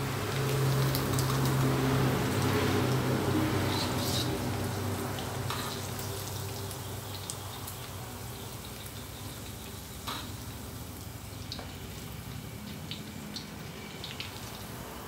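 Sun-dried beef and pandan leaves deep-frying in a wok of hot oil, a steady sizzle that is strongest for the first few seconds and then eases off. A metal ladle clicks against the wok several times as pieces are stirred and scooped out.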